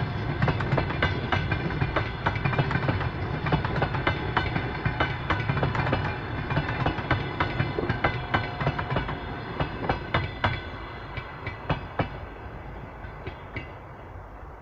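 Train wheels clattering over rail joints above a steady rumble. The clicks come thick and irregular at first, then grow sparser and quieter in the last few seconds.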